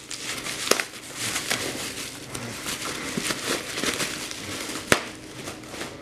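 Clear plastic air-pillow packing crinkling and crackling as it is handled and pulled from a cardboard box, with one sharp snap about five seconds in.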